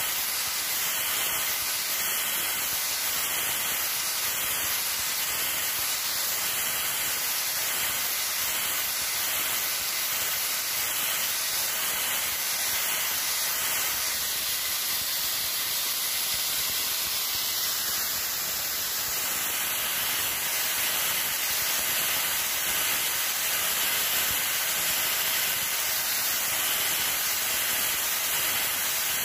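Electric angle grinder with a sanding disc running against a knife handle as it is shaped: a steady high motor whine over a continuous hiss of abrasion, the grinding wavering slightly as the disc is worked along the handle.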